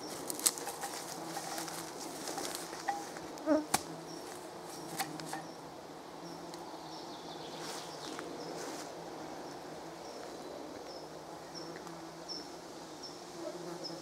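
Flying insects buzzing close around, a steady low drone that goes on throughout. A few sharp knocks sound in the first four seconds.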